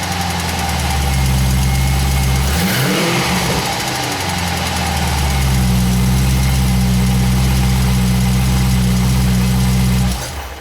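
Car engine idling, its pitch dipping and rising briefly about three seconds in, then cutting off near the end. The engine carries the strange noise that appeared after a clutch change, heard whether or not the clutch pedal is pressed.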